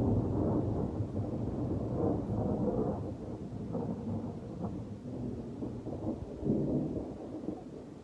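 Rolling thunder: a long low rumble that swells up again a couple of times and fades away toward the end.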